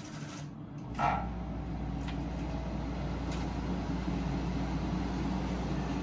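Frigidaire 12,000 BTU window air conditioner starting up: a short thump about a second in, then a steady low hum with the rush of its fan.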